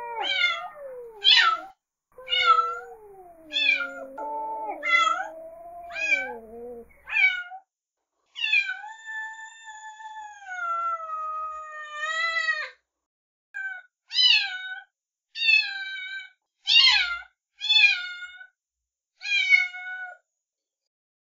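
Young kittens mewing over and over: a quick series of short, high mews, with a lower drawn-out call under them in the first few seconds, then one long mew about eight seconds in, followed by more short mews.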